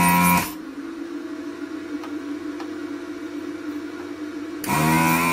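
Anesty ZD-915 desoldering station's vacuum pump running with a steady pitched hum while the gun's trigger is held to suck molten solder off a pin. It cuts out about half a second in, leaving a quieter steady hum, and starts again near the end.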